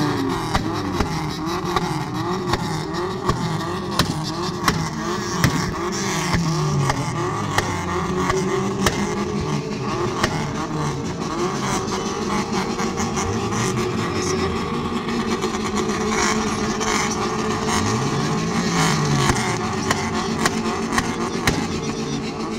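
Car engine revving up and down again and again, its pitch rising and falling in repeated swells, with short sharp clicks now and then.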